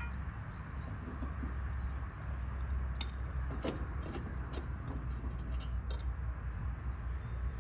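Steady low outdoor rumble with a handful of faint, scattered light clicks and knocks.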